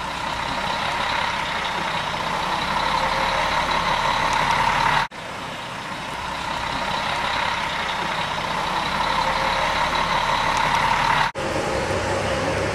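Diesel bus engine running, a steady drone that grows louder, broken twice by a sudden brief dropout.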